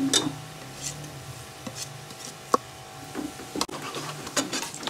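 A metal ladle stirring whole spices into fried onions in an aluminium pressure cooker: scattered scrapes and clinks of metal on metal, with a few sharper clinks midway.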